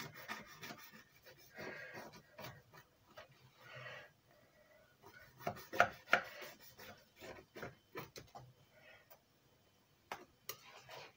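A knife sawing through the baked crust of a yeast-dough pie on a wooden board: repeated scraping strokes in bursts, with a few sharp clicks about six seconds in and again around ten seconds.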